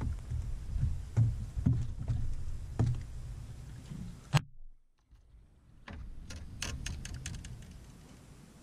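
Low, uneven rumble with scattered knocks, and one sharp click about four seconds in, from rod and boat-deck handling noise. After a short drop-out, a quick run of light clicks and rattles.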